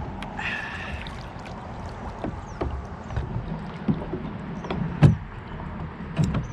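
Irregular knocks and thumps on a kayak hull as a hooked bass is fought and brought in alongside, the loudest knock about five seconds in. A brief high pitched tone sounds about half a second in.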